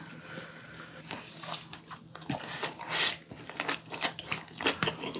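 Close-miked eating: irregular crunchy, wet chewing and biting sounds, a little louder about three seconds in.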